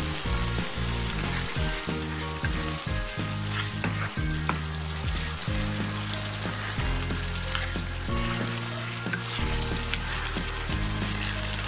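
Bean seeds frying in oil and spice paste in a wok, with scattered clicks and scrapes of a spatula stirring them during sautéing. Background music with low, stepwise-changing notes plays underneath.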